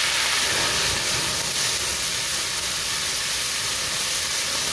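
White wine hissing and sizzling hard as it hits hot olive oil in a frying pan of swordfish steaks. The alcohol catches fire and the pan flares up, adding a low rumble from about half a second in under a steady, loud hiss.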